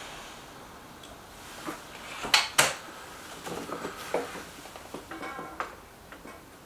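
Air rifle being handled and readied between shots: two sharp mechanical clicks about two and a half seconds in, then a run of lighter metallic clicks and clatter with a brief ring.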